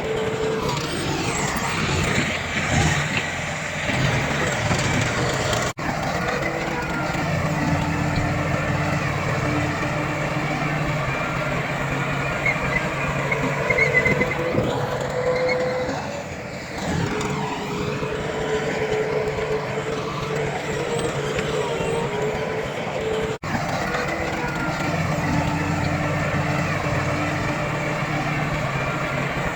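Heavy diesel earth-moving machinery running: bulldozer and dump truck engines working steadily. The engine note dips and shifts briefly about halfway through, and the sound breaks off for an instant twice.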